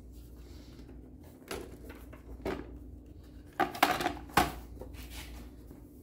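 Plastic clicks and knocks as the Tecmar jrCaptain expansion unit is pulled off the side of an IBM PCjr and set down: a couple of light clicks, then a quick cluster of louder knocks about three and a half to four and a half seconds in.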